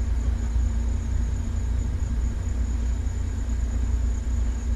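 Replica Sopwith Pup biplane's engine idling steadily on the ground, an even low rumble.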